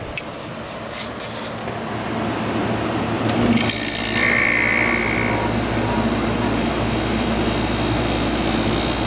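The rotary compressor of a Fedders AUP05F2K window air conditioner kicks on about three and a half seconds in, over its running fan. A burst of hiss and a brief high whistle come with the start, then a steady hum and hiss, louder than the fan alone. The owner calls the hissing normal on startup.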